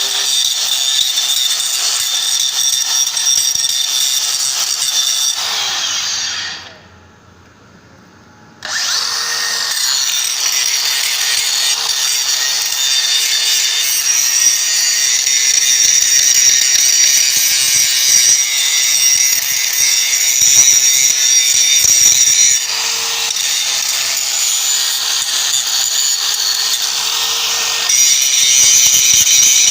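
DeWalt DCG414 FlexVolt cordless angle grinder grinding weld seams on steel, a loud, mostly high-pitched grinding noise over a steady motor whine. About six seconds in it winds down and goes quiet for a couple of seconds, then starts again abruptly and keeps grinding.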